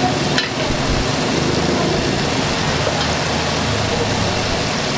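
Fried rice sizzling steadily in a hot wok over a gas burner, with a brief clink about half a second in.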